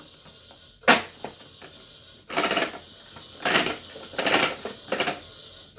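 Plastic toy sink (LeapFrog Scrub 'N Play Smart Sink) clicking once as its soap dispenser is pressed, then rattling and clattering in four short bursts as its spinning mechanism turns the plastic dishes.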